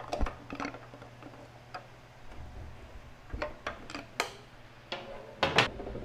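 Scattered metal clicks and knocks as a screwdriver pries a pressure washer pump off the engine shaft, working it on each side. The loudest pair of knocks comes about five and a half seconds in.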